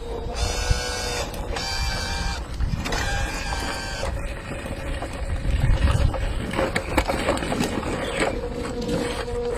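Small electric gear motors of a toy RC excavator truck whining in several short runs that start and stop, with some clicks and low handling rumble.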